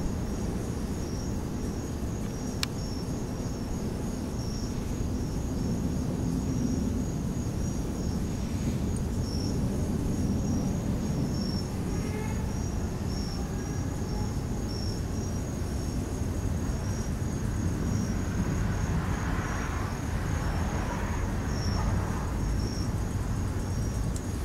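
Crickets chirping in a steady run of evenly spaced high-pitched pulses, over a continuous low rumble of wind on the microphone.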